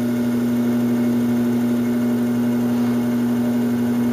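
Electric pottery wheel running at a steady speed, a constant even hum as the clay spins.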